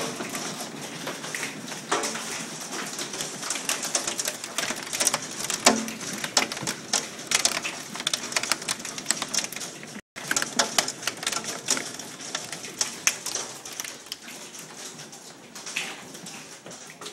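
Golf-ball-size hail coming down hard: a dense, irregular clatter of hailstone impacts over a steady hiss of rain. The sound drops out for an instant about ten seconds in.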